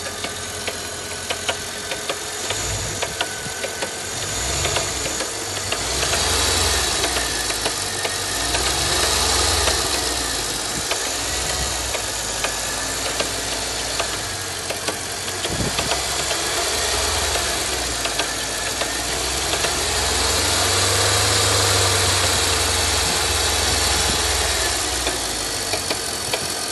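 Mercedes-Benz W211 E500's 5.5-litre V8 running, with sharp ticks or knocks recurring over the engine note: the strange noise the owner is trying to identify. The engine note swells twice.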